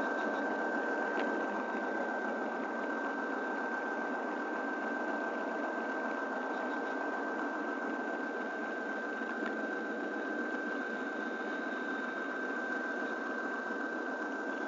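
Model train running along the track: a steady small-motor whir with a constant high whine, and the rolling of the cars' wheels on the rails, heard from a camera riding on the train. A couple of faint clicks break in.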